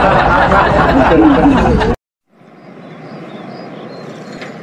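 A crowd laughing and chattering, a dubbed laugh track, which cuts off suddenly about two seconds in. After a brief silence, a faint steady background noise fades in.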